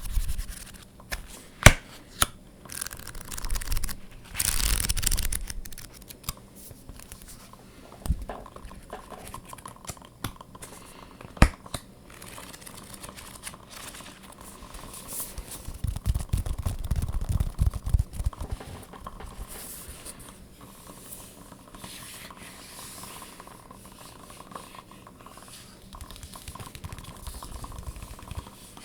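Tapping and scratching on objects: a few sharp single taps, a scratchy rustling stretch about four seconds in, and a busier patch of scratching with low thuds around two-thirds of the way through.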